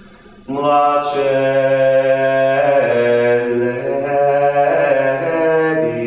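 A voice chanting in long held notes that shift pitch slowly, over a low sustained tone, starting after a brief lull about half a second in.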